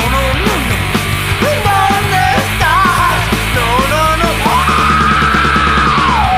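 Rock band playing loudly with drums and a dense band sound. A wavering lead melody runs over it, then a long held high note enters about four and a half seconds in and slides down at the end.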